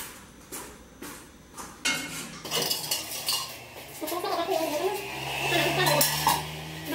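Kitchen clatter of a metal pot and utensils being handled: a few separate clinks at first, then a busier run of knocks and rattles from a little over two seconds in.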